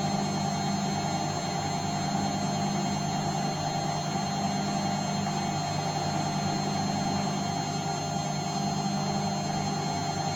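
Bosch washing machine running: a steady motor hum with a constant high whine, unchanging throughout.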